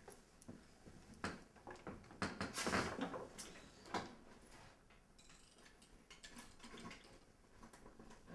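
A door being handled and footsteps: faint knocks and clicks, with a louder clatter about two and a half seconds in.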